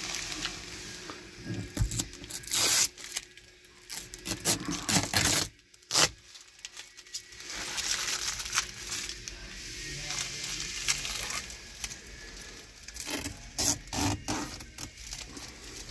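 Protective plastic film being peeled and crinkled off a new car's interior trim: irregular tearing and crackling, with a brief lull about six seconds in.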